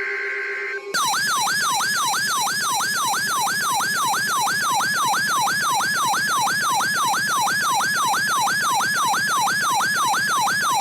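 Electronic siren in a fast yelp: a pitch that falls from high to low and snaps back up, about three times a second, starting about a second in.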